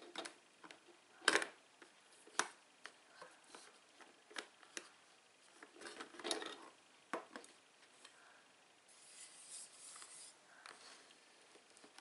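Faint clicks and knocks of a glass coffee carafe being handled in a plastic drip coffee maker and taken out, the loudest knock about a second in, with a short scrape about three-quarters of the way through.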